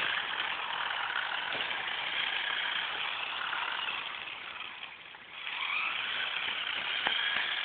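Small electric motor and gears of a toy RC truck whining as it drives. The whine drops away about five seconds in, then rises again as the truck speeds up. A few light ticks come near the end.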